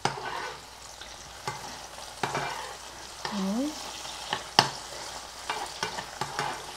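Pancakes sizzling in oil in a frying pan, with scattered sharp clicks and scrapes of utensils against the pan and plates, the loudest a little past the middle.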